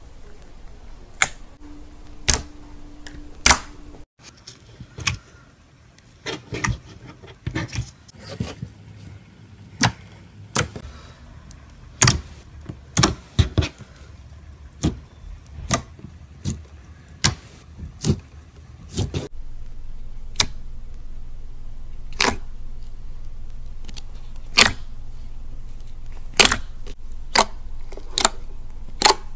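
Slime being pressed and squeezed by hand, giving sharp clicking pops, about one or two a second, with a low steady hum joining about two-thirds of the way through.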